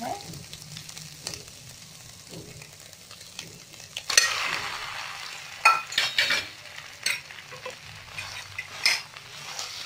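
Boiled instant noodles dropped into a hot nonstick pan of fried egg and peas, setting off sizzling about four seconds in. A spatula then scrapes and taps against the pan a few times.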